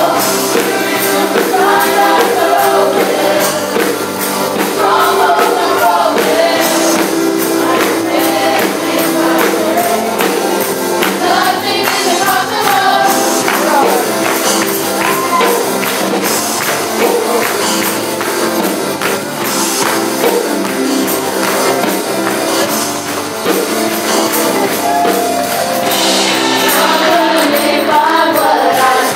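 Live gospel worship music: voices singing into microphones over electric keyboard and drums, with a steady jingling percussion beat.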